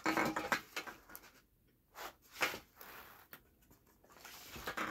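Cardboard pizza box and paper liner rustling and scraping as they are handled, in three short spells: at the start, about two seconds in, and near the end.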